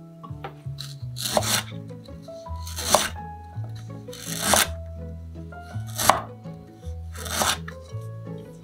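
Kitchen knife slicing fresh ginger on a wooden cutting board: five slow cuts about a second and a half apart, each a short crunch ending in a knock on the board.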